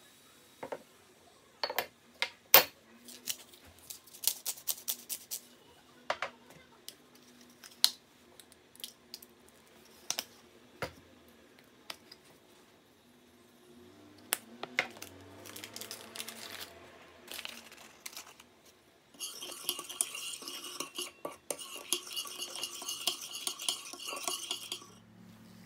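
Scattered sharp clicks and taps of kitchen utensils and containers over the first ten seconds or so. About two-thirds of the way in, a metal spoon starts stirring and scraping in a ceramic bowl, a fast, busy rattle-and-scrape that stops just before the end.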